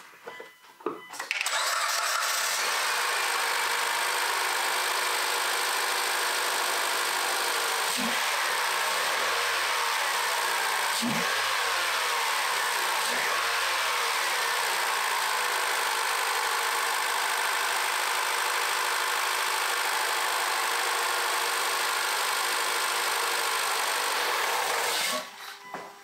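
Mitsubishi 4B11 2.0-litre inline-four engine starting about a second in and idling steadily, then shut off shortly before the end. This is its first start after a timing chain replacement.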